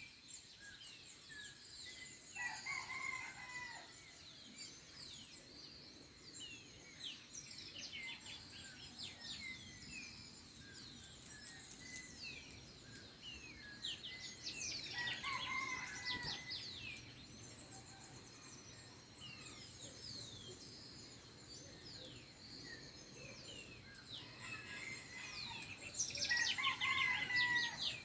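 A rooster crowing three times, near the start, midway and near the end, over a dawn chorus of small birds chirping steadily.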